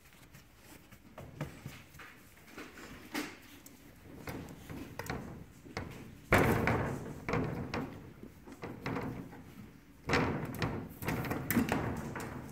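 Labrador puppies jumping and pawing against the pen's wooden-framed clear panel, making it knock and rattle, with claws scraping. There are sudden louder bouts of rattling about six seconds in and again about ten seconds in.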